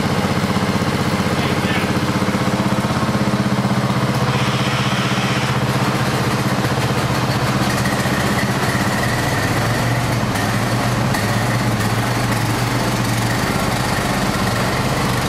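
Riding lawn tractor's small engine running steadily, its note shifting about nine seconds in.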